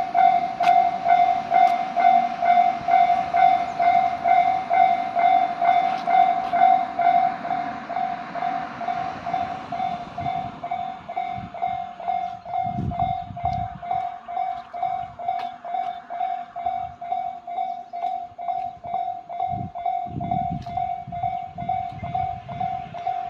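Japanese level crossing warning bell ringing, its electronic clang repeating steadily about twice a second. From about halfway in, the low rumble and clicks of a train running over the crossing come in under it.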